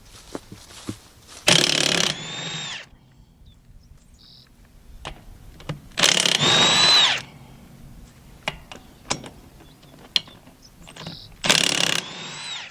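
Impact wrench run in three bursts about four to five seconds apart, each hammering briefly and then spinning on with a whine that winds down, as the nuts on a baler accumulator's flat dolly wheel are loosened. Small metallic clicks between the bursts.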